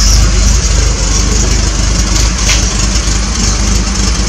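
A 1980 Triumph TR7's 2.0-litre slant-four engine idling steadily, ticking over to warm up through a newly fitted mid silencer.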